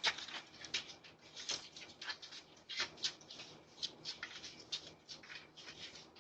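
Raccoons scrabbling about close to a doorbell camera: a dense, irregular run of quick scratchy clicks and rustles that stops abruptly at the end.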